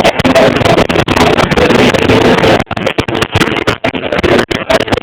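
Loud, heavily distorted sound from an overloaded recording, a rough wash with faint pitched tones in it, cut by several brief dropouts in the second half.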